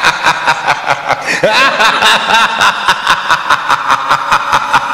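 A long, sinister cackling laugh, a rapid run of 'ha-ha-ha' pulses about seven a second with the pitch sliding up and down.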